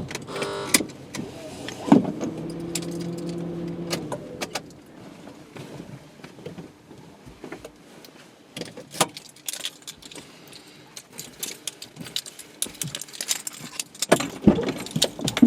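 Scattered small clicks and rattles. A steady low hum runs for about two seconds near the start, and a denser run of clicks comes near the end.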